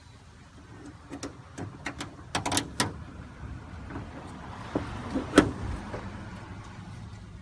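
Irregular clicks and knocks of hand tools and hardware being handled, with one sharp, loud knock about five and a half seconds in.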